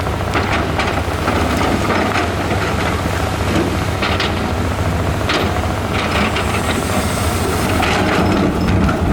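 Hydraulic excavator's diesel engine running steadily, with irregular knocks and clatter of rock and steel as rocks are moved.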